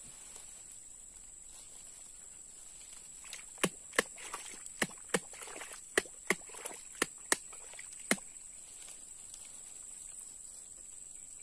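Steady high-pitched drone of insects, with a run of about ten sharp knocks or slaps, irregularly spaced, starting a few seconds in and ending about two-thirds of the way through.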